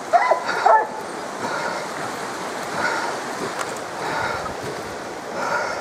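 Foxhounds giving tongue: two short, bending cries in the first second, then fainter cries over a steady rushing noise.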